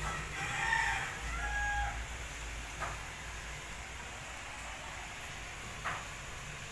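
A rooster crowing once, a call of about two seconds at the start, over a steady low hum. Two short faint clicks follow later.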